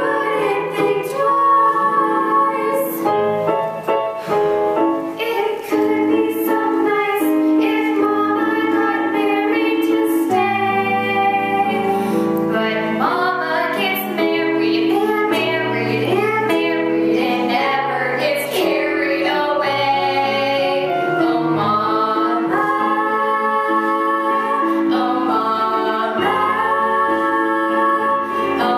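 Two girls singing a show-tune duet over a steady instrumental accompaniment with held bass notes.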